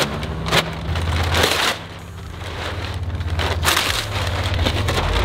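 Foil shipping wrap crinkling and rustling as it is pulled off a crated machine, in several bursts, over a low steady hum.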